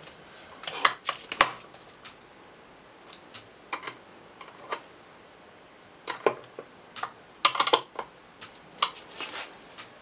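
Irregular small clicks and knocks of a screwdriver and metal door hardware being worked on a home-built mini fridge, with a quick cluster of clicks about three-quarters of the way through.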